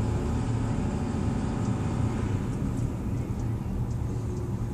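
2009 Ford F-350's 6.4-litre Power Stroke V8 diesel running steadily, heard from inside the cab.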